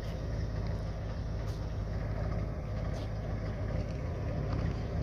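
1966 Ford truck's engine running steadily, a low even hum with no change in speed.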